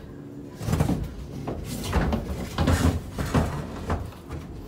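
Four short bouts of rustling, scraping and knocking about a second apart: handling noise from work done by hand close to the microphone.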